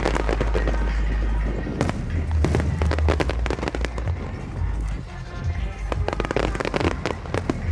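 A fireworks display: rapid clusters of bangs and crackling bursts, with music playing underneath.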